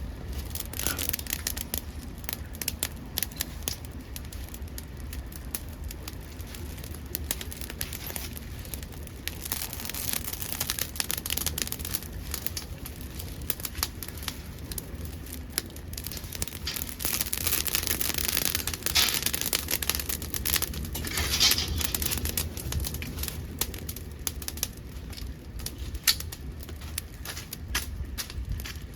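Dead podocarpus (maki) wood burning in a homemade secondary-combustion wood gas stove: steady irregular crackling and popping over a hiss of flame that grows louder in the middle.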